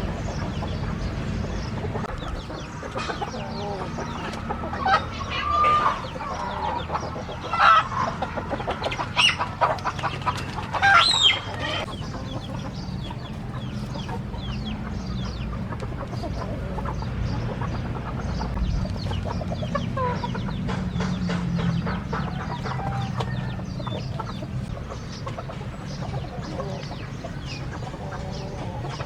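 Chickens clucking and calling, with a run of loud rooster calls between about five and twelve seconds in and quieter clucks after, over a steady low hum.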